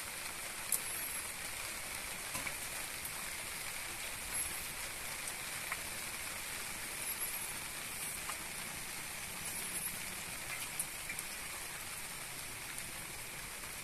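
Steady outdoor background hiss with a few faint scattered clicks and crackles.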